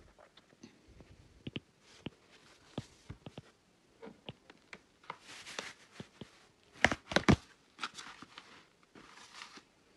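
Stylus tapping and scratching on a tablet screen as words are handwritten: scattered light taps and short scratchy strokes, with two sharper clicks about seven seconds in.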